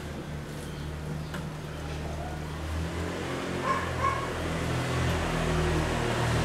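A low engine hum, like a vehicle running close by, that shifts in pitch and grows slightly louder toward the end, with two short high chirps about midway.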